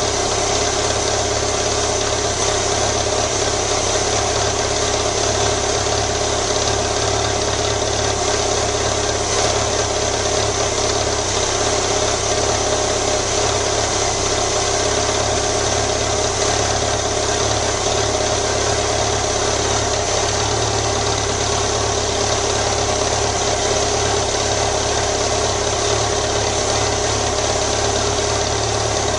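BMW motorcycle engine idling steadily.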